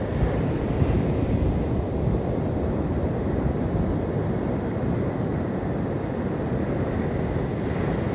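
Steady rush of sea surf on the beach, mixed with wind buffeting the microphone as a rough low rumble.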